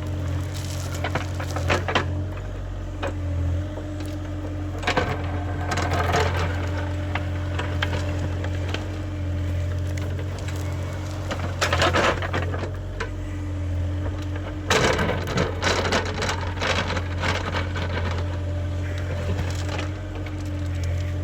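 Excavation machine's engine running steadily, with four bursts of cracking and crunching as material is broken and dug.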